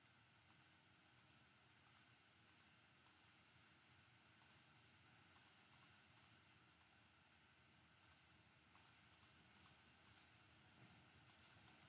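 Near silence with faint, irregular clicks of a computer mouse or keys, as numbers are worked out on a calculator.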